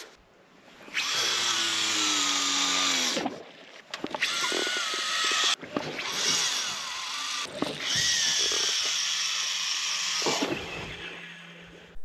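Fishing reel whirring as line runs off the spool. The first whir, about a second in, falls in pitch as the spool slows, and more whirring spells of a second or three follow.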